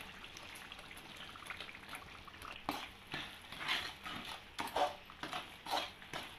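Spatula stirring thick, oily spice paste in a pan, a series of irregular wet scraping strokes starting about three seconds in, over a faint steady hiss.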